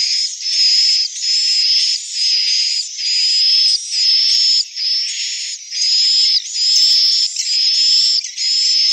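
Edible-nest swiftlet call sound (suara panggil walet), the recorded lure played to draw swiftlets into a bird house. It is a high twittering with a steady whistle-like tone on top, repeating in units just under a second long.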